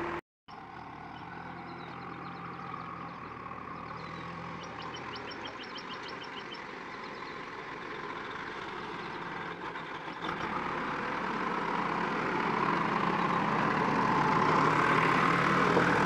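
JCB backhoe loader's diesel engine running as the machine drives closer, its steady hum growing steadily louder toward the end.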